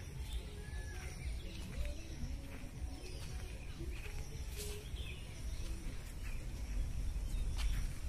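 Woodland ambience: scattered short bird chirps and calls over a steady low rumble, with a few light footfalls on the dirt path.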